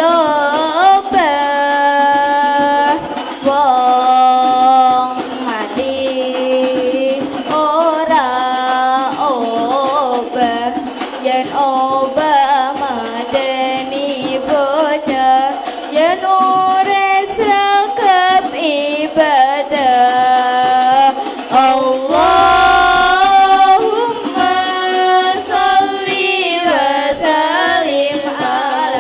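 Children singing an Islamic sholawat together, accompanied by rebana frame drums beaten in a steady rhythm.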